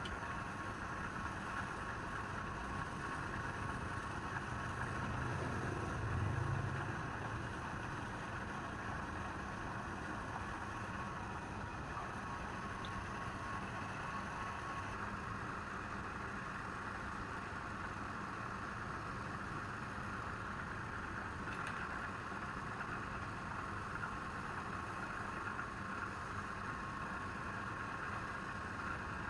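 Steady whirring hum of a running machine, with a brief low swell about six seconds in.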